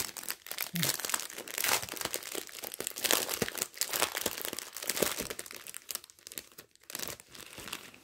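Clear plastic zip-lock bags of diamond-painting drills crinkling as they are handled, with quick crackles that thin out over the last couple of seconds.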